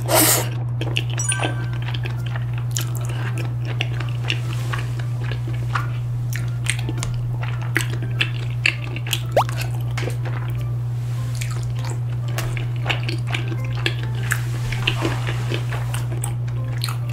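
Close-miked mukbang eating sounds: a person chewing and slurping rosé tteokbokki, soft chewy rice cakes and wide glass noodles in a creamy sauce, with many small wet clicks of mouth and chopsticks. A louder burst of mouth noise comes right at the start. A steady low hum runs underneath.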